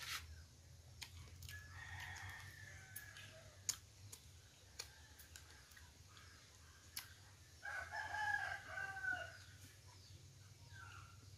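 A rooster crowing twice: a fainter crow about two seconds in and a louder one near the end. A few sharp clicks fall in between.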